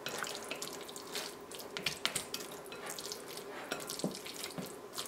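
Silicone spatula stirring sauce-coated dough pieces and shredded mozzarella in a glass bowl: soft wet squishing with small irregular taps.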